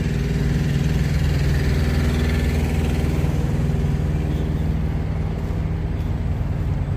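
Diesel engine of a parked semi truck idling steadily.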